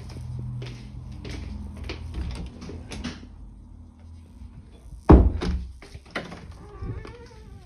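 Footsteps and small knocks on a laminate floor, with an interior door knocking loudly about five seconds in.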